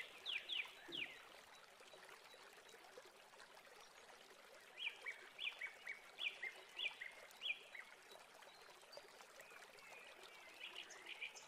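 A bird chirping faintly in short falling notes, in three bouts. Under it, a soft hiss from thick pudding mixture pouring out of a saucepan into aluminium molds.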